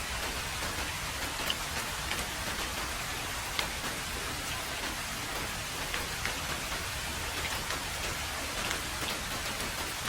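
Heavy rain falling steadily on a road, an even hiss with individual drops ticking sharply now and then.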